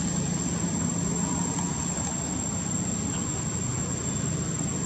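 Steady background drone: a low hum under a constant high, thin tone, with no distinct knocks or calls. The hum is strongest for about the first two seconds.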